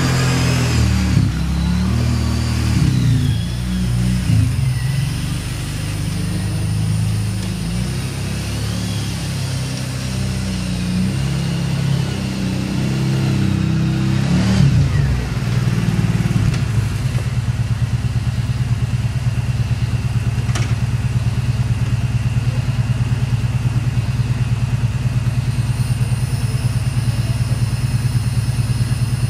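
Kawasaki Brute Force 750 ATV's V-twin engine running as the quad is ridden around, its engine speed rising and falling. A little over halfway through it settles into a steady idle.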